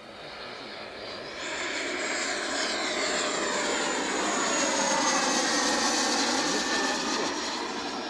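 Electric ducted fan of a Skymaster F-18 model jet, a Taiwan Tornado 120 mm fan unit, whining on a fly-by: it swells about a second and a half in, is loudest midway, and its pitch slides down as it passes before fading near the end.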